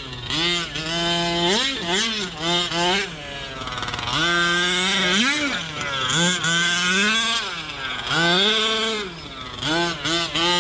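Two-stroke gas engine of a Losi 5T 1/5-scale RC truck revving up and down over and over, its pitch climbing and dropping with each burst of throttle.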